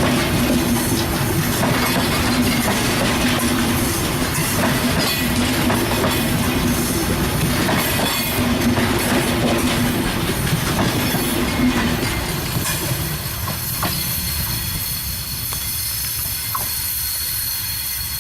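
Diesel-hauled express train passing through a sharp curve: a steady rumble of wheels on rail with clicks, under a low steady hum. The hum stops about twelve seconds in, then the rumble eases while thin high wheel-squeal tones carry on as the cars roll past.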